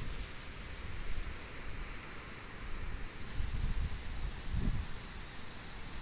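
Strong gusty wind buffeting the microphone in uneven low rumbles, over a steady background of chirping insects.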